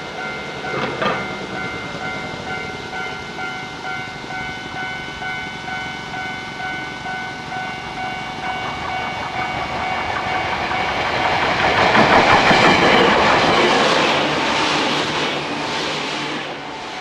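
Keio Inokashira Line 3000 series electric train running in and passing close by. It grows louder to a peak about two-thirds of the way through, with rhythmic wheel clatter over the rail joints as the cars go past, then fades. Behind it, a level-crossing warning bell rings steadily.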